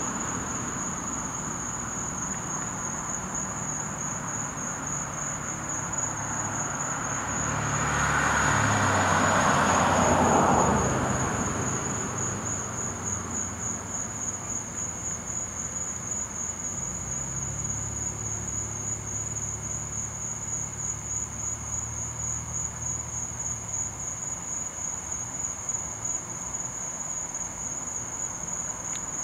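A chorus of night insects, crickets, trilling steadily in one high pitch. About eight seconds in, a broad rushing sound swells up and fades out again by about eleven seconds.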